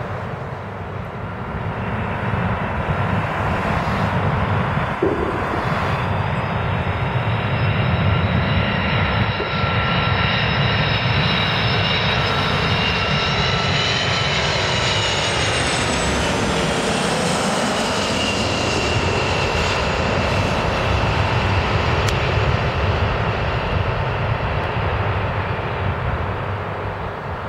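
Boeing E-6B Mercury's four CFM56 turbofan engines on final approach: a steady jet roar that builds over the first few seconds, with a whine that rises and then falls in pitch as the aircraft passes, about halfway through.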